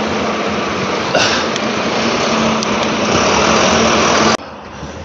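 Loud steady road noise with a low steady hum, cut off suddenly about four seconds in.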